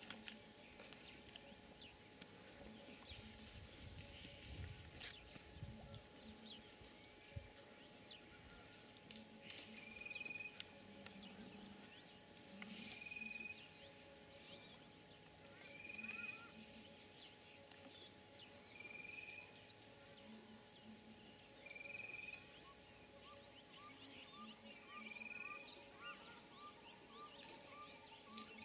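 Quiet African bush ambience: a steady high insect hiss, with a bird repeating a short high call about every three seconds and, near the end, a quick run of lower notes. A few faint clicks and snaps are scattered through it.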